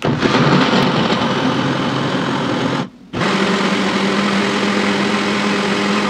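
Countertop jug blender running, chopping whole lime, ginger, garlic and pepper in water into a liquid. It cuts out briefly about three seconds in and starts again, the second run with a steadier hum.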